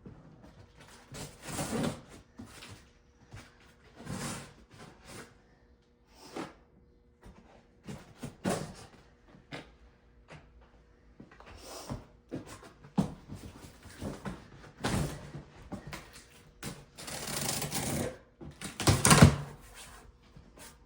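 A shipping box and its packaging being opened and handled, in irregular bursts of rustling and scraping. The longest and loudest stretch comes near the end.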